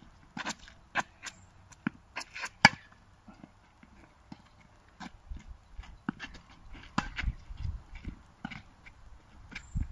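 Irregular sharp knocks and taps, with a quick cluster of loud ones about two to three seconds in, then softer thuds and low rumbling.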